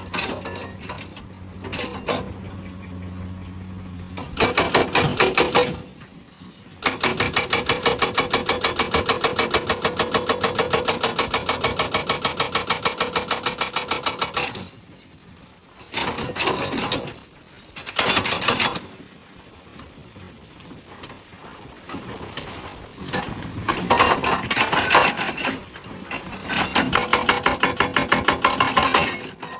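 Hydraulic breaker on a Komatsu PC200 excavator hammering rock in bursts of rapid, evenly spaced blows. The longest burst runs about seven seconds, and the machine's steady running fills the pauses between bursts.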